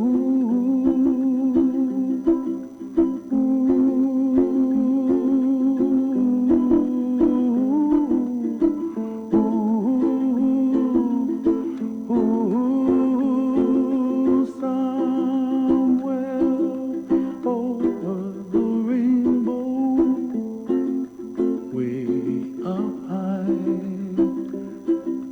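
Ukulele music with a voice singing along, plucked notes under a gliding melody.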